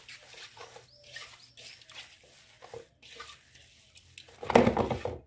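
Hands squeezing and stirring damp cracked-wheat porridge in a metal basin: short, irregular wet rustles and squishes. Near the end comes a much louder, rough burst lasting about half a second.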